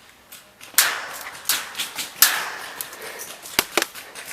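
Airsoft gunfire: a scattering of sharp shots and short noisy bursts at irregular intervals, with two crisp cracks near the end.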